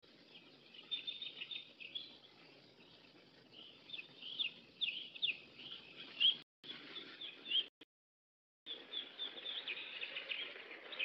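Birds chirping on an old film soundtrack: many short, high chirps over a faint hiss. The sound cuts out briefly a little past halfway, then drops out for about a second before the chirping resumes.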